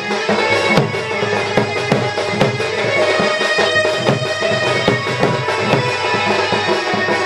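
Live folk-dance music: a large barrel drum (dhol) beaten with a stick in a steady rhythm under a sustained melody line.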